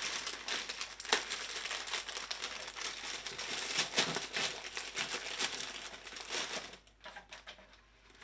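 Plastic snack wrappers crinkling as they are handled, a dense irregular crackle that dies down to a few faint rustles about seven seconds in.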